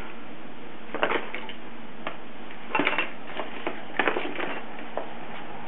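Paper packaging rustling and crinkling as it is handled, in a few short crinkles (about a second in, near three seconds, and around four seconds), over a steady hiss.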